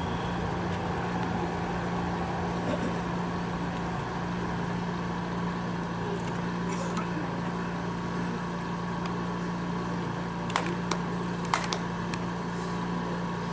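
Two sharp handclaps, the Shinto clapping of a representative offering a tamagushi branch, a little over ten seconds in, over a steady low hum and background noise.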